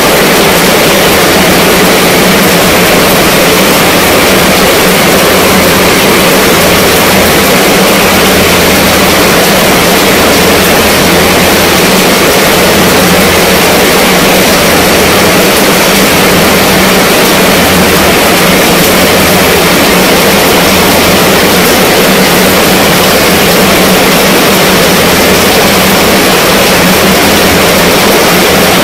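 Heavy rain falling steadily on a tent's fabric canopy and the wet ground around it: a loud, unbroken downpour with no thunder.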